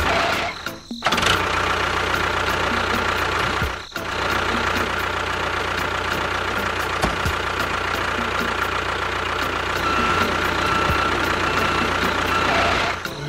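A motor running steadily, cut off briefly twice: once about a second in and once near four seconds in.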